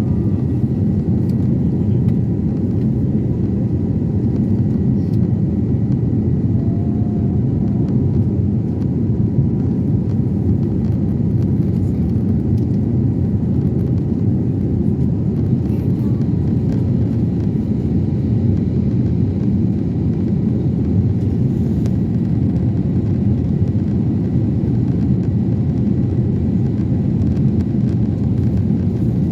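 Cabin noise inside an Airbus A321neo: a steady low rumble of engines and airflow that holds even throughout.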